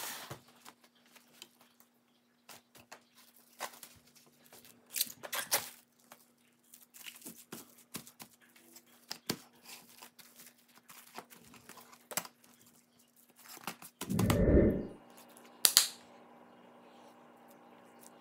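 Plastic cling film crinkling and rustling as it is stretched and smoothed over a bamboo sushi rolling mat, with scattered light taps and clicks. About fourteen seconds in there is a loud, dull thump, then a sharp click.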